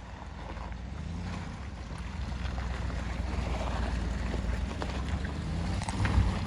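Pickup truck engine running as the truck drives off, a steady low rumble that slowly grows louder, with scattered knocks and rattles near the end.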